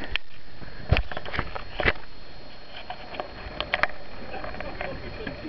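Kayak paddle strokes: water splashing, with a handful of sharp knocks of paddle or hand against the kayak, over a steady rush of water.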